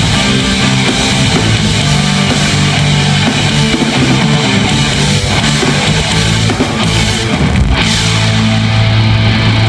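Loud amplified rock band playing an instrumental passage, with electric guitar and a drum kit over sustained low bass notes.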